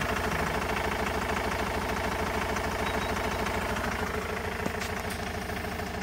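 2004 Vauxhall Movano's 2.5-litre diesel engine idling with a steady, even pulse. The owner suspects a misfire from a failed injector or a cylinder fault.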